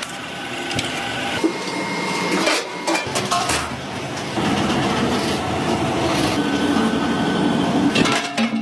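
Workshop machinery running steadily, with scattered knocks and clatter.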